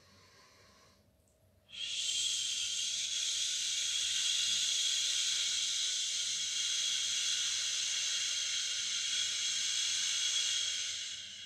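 A woman exhaling one long "shhh" through her teeth, the Wood element's healing sound in Do-In, lasting about nine seconds and fading out near the end. It follows a faint in-breath at the start.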